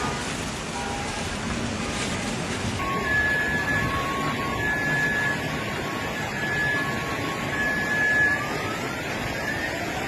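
Steady rushing of heavy rain and floodwater. About three seconds in, an emergency vehicle's siren joins it, alternating between a high and a low tone, then switching near the end to a rising wail.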